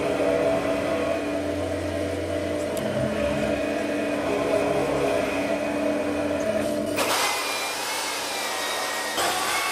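Wood lathe running with a steady hum while a hand turning tool cuts into the end of the spinning wood. About seven seconds in this gives way to a power drill with a sanding disc sanding the turning piece: a higher wavering whine over a rushing noise.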